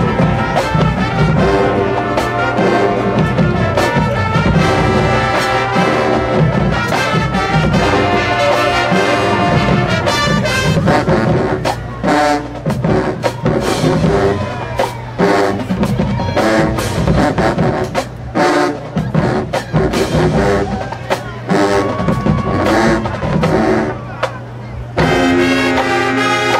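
Marching band playing, brass section and drumline together: held brass chords at first, then about halfway through a run of sharp, short hits with brief gaps between them, before full held brass chords return near the end.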